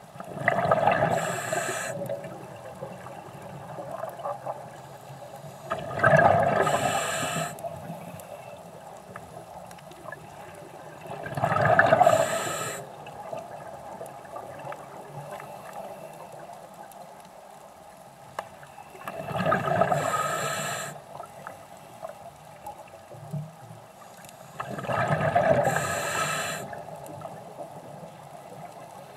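Scuba diver breathing through a regulator, heard underwater: a rush of exhaled bubbles about every six seconds, five times in all, with quieter stretches between.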